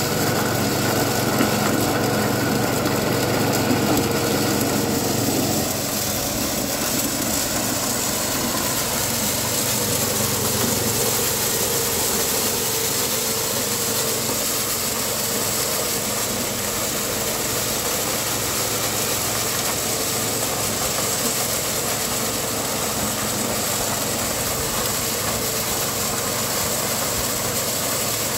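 Bonasa corn sheller driven by its small engine, running steadily as ears of corn are fed through it. It is a little louder for the first five seconds or so, then settles slightly quieter.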